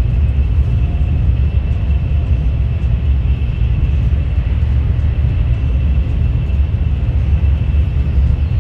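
Cabin noise of a Haramain high-speed train running at about 245 km/h: a loud, steady low rumble with a faint steady high whine above it.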